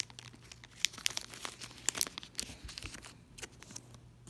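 Foil Pokémon booster pack wrapper crinkling and tearing as it is opened, in scattered small crackles.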